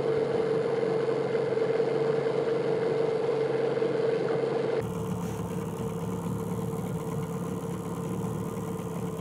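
Hidea 9.8 outboard motor running steadily with an even hum; the sound drops a little in level about five seconds in.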